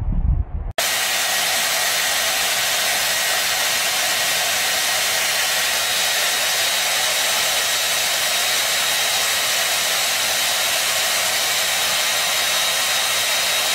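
Handheld hair dryer running steadily: a constant rushing blow with a faint high whine. It starts abruptly about a second in, right after a brief low rumble cuts off.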